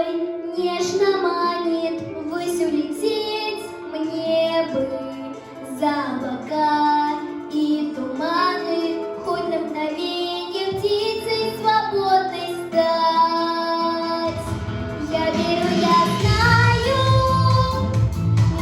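A young girl singing a melodic song over an instrumental backing. About fourteen seconds in, the accompaniment grows fuller with a deep bass line.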